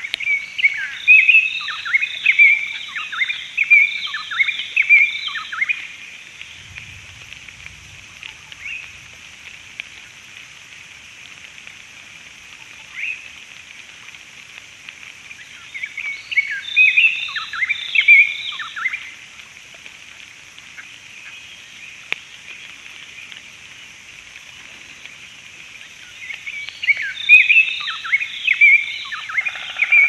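Robin-chats singing in bouts of rich, rapid, sliding whistled phrases: one long bout of about six seconds at the start, then two shorter bouts later on. A steady faint high hiss runs underneath.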